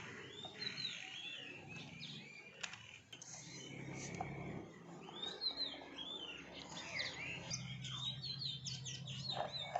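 Small birds chirping and calling repeatedly, short rising and falling notes that get busier in the second half, over a low steady drone.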